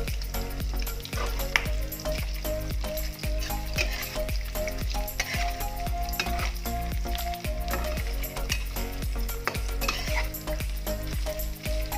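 Smoked beef slices sizzling as they fry in plenty of oil in a wok, with a metal spatula scraping and clicking against the pan over and over as it is stirred.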